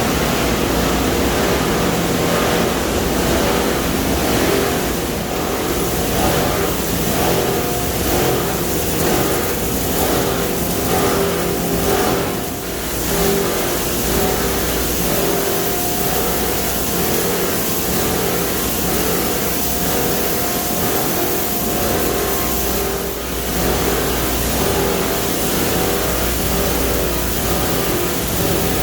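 Copper wire chopping plant machinery running steadily: a loud mechanical hum with dense rattling from the granulating and screening equipment, dipping briefly twice.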